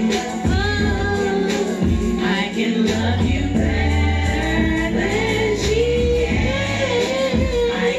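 Karaoke: women singing into microphones over a recorded music backing track with a strong bass line.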